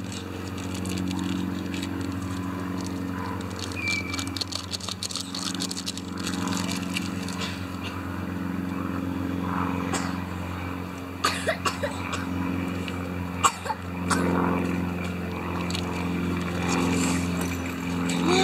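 A steady low mechanical hum, like a motor running, underneath crinkling and rustling of food packaging being handled. Near the end there is a louder crackle as aluminium foil is pressed over the cooking cup.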